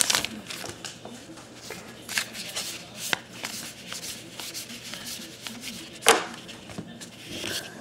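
Trading cards being handled and flipped through by hand: soft sliding and rubbing with small taps, and a sharper snap about six seconds in.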